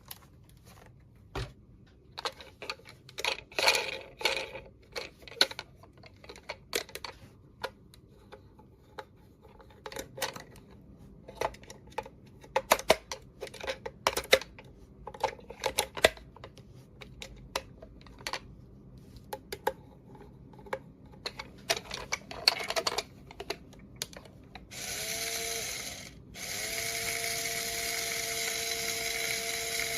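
Small plastic toy pieces being handled, with scattered clicks and taps. About 25 seconds in, a small battery-powered toy motor starts with a steady whirr, stops for a moment, then runs on.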